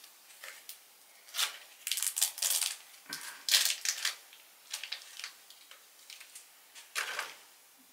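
Clear plastic snack wrapper crinkling and tearing as it is pulled open by hand, in a run of crackly rustles that is busiest in the first half and thins out into lighter crinkles later.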